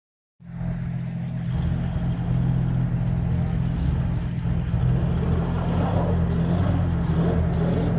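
Engine of a Toyota pickup spinning circles on snow, running as a steady low drone that starts abruptly about half a second in.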